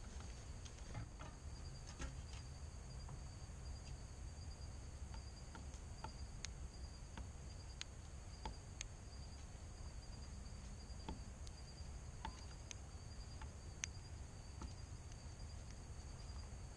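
Insect chorus: a steady, high, pulsing trill, with scattered sharp clicks a dozen or so times.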